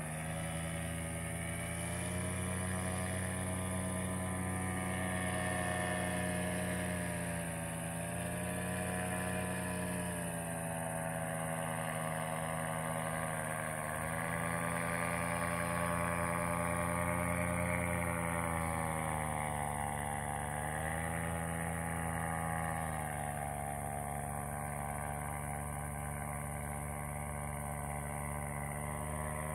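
Paramotor trike's engine and propeller droning steadily overhead, its pitch sagging and rising slowly several times as it flies.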